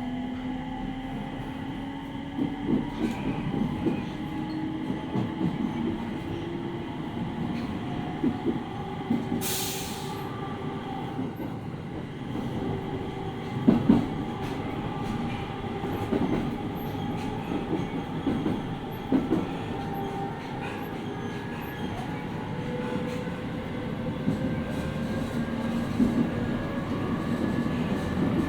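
Running sound heard inside a JR 701 series 5500-subseries electric train car: a steady rumble with a motor whine slowly rising in pitch as the train gathers speed, and scattered wheel clicks and knocks over the rails. A brief hiss comes about ten seconds in, and a louder knock a few seconds later.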